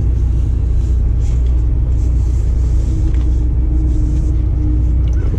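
Steady low rumble of an idling engine, with a faint steady hum on top through the middle.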